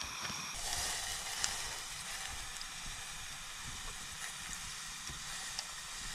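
Steady hiss of a pot of ginger tea heating on a camp stove, with a few faint clicks.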